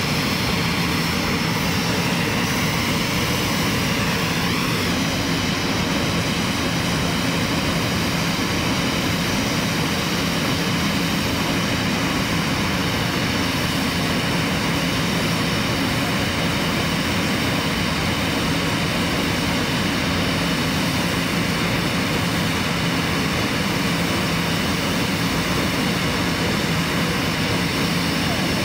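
Airbus A320-family airliner's jet engines running steadily at idle during de-icing: an unbroken rumble and whine, with a brief rising whine about four seconds in.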